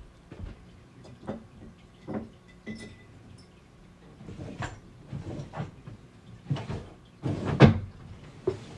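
Someone moving things about by hand: a string of separate knocks, bumps and clatters, with the loudest thump about three-quarters of the way in.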